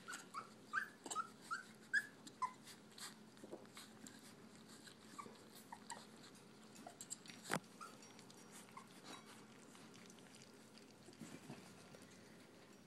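Brittany puppies eating soft food from a stainless steel pan: a run of short, high whimpering squeaks in the first couple of seconds, then faint lapping and small clicks, with one sharp click a little past the middle.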